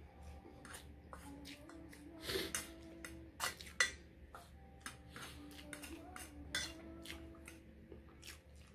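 Eating noodles from a metal tray by hand: irregular light clicks and clinks on the tray, a few of them sharper, with chewing sounds.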